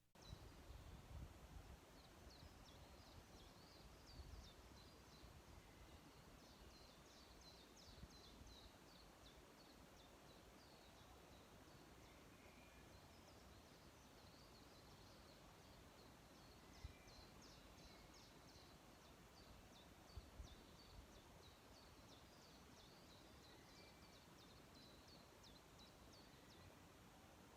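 Faint outdoor ambience: small birds chirping in quick, high twitters throughout, over a low rumble.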